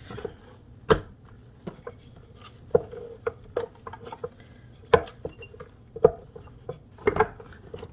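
Wooden rolling pin knocking and rolling on a wooden board as folded seitan dough is handled and rolled out: scattered sharp knocks, the loudest about a second in and around five and six seconds in.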